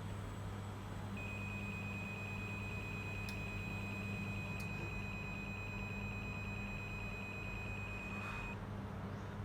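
A steady, high-pitched electronic tone, like a long held beep, starts about a second in and cuts off about a second before the end. A constant low hum runs under it.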